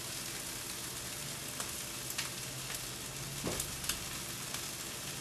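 Lean pork fried rice sizzling steadily in a frying pan on the hob, with a few light clicks of the spatula against the pan.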